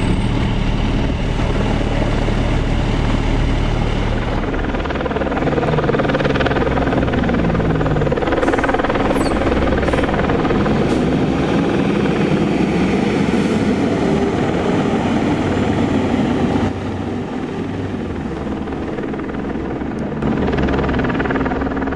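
Heavy diesel engines of fire apparatus running steadily, with the engine note rising and falling a few times as a rig moves. The level drops a little about two-thirds of the way through.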